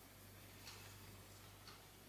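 Near silence: room tone with a faint tick about once a second and a low steady hum.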